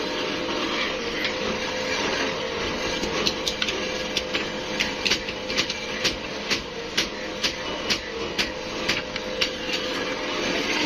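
Steady running noise of workshop machinery with a faint hum, joined from about three seconds in by sharp metallic clicks at about two a second.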